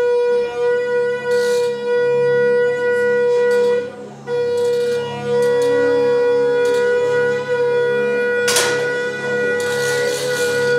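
Background music holding a long, steady wind-instrument-like note, with a brief break about four seconds in. Near the end, a single sharp crack from a 10 m air pistol shot.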